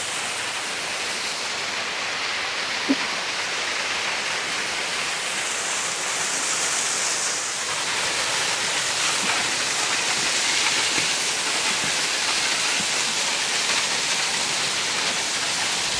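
Steady rush of a mountain stream and small waterfall pouring through a rocky gorge, with one short knock about three seconds in.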